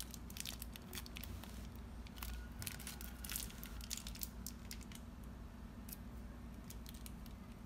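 Faint handling noise: scattered small clicks and crinkles of a hand moving small plastic items, over a steady low hum.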